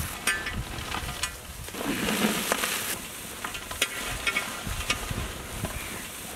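Crisp fried potato sticks being tossed by hand in a large metal basin: a dry rustling and light clattering of fries against each other and the bowl, with many small clicks, swelling for about a second partway through.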